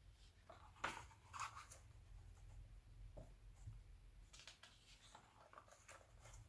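Faint rustling of magazine pages being handled and turned, in two spells: about a second in and again past the middle, over a low steady hum.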